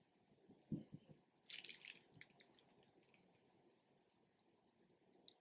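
Mostly near silence, broken by a few faint clicks and a soft tap under a second in, a short crackly patch of small clicks about a second and a half in, and one more click near the end. These are the small handling sounds of a makeup brush and a primer container worked close to the microphone.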